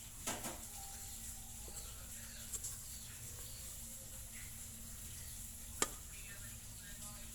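Hands kneading bread dough on a floured board: soft pressing and squishing with a few knocks, the sharpest a little before the end, over a steady low hum.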